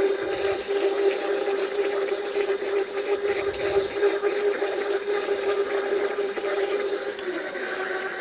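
Countertop blender running, churning whipping cream, vanilla ice cream and sea salt with its lid off, a steady motor whine over a liquid churn that dips slightly in pitch near the end. The cream is being blended only to a pourable, not fully whipped, state.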